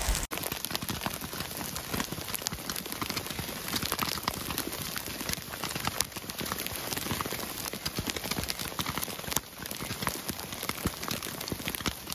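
Hail and rain pattering on the ground: a dense, steady run of small sharp taps.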